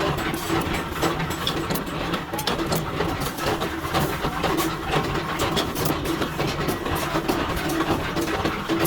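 Metal lathe running while turning steel: a steady machine hum with a constant pitch, overlaid by many irregular sharp ticks and crackles as the cutting tool works the steel.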